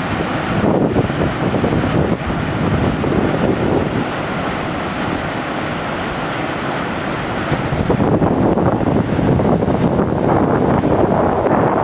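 Steady rushing roar of the Lava Canyon waterfall, mixed with wind noise on the microphone. It grows louder about eight seconds in.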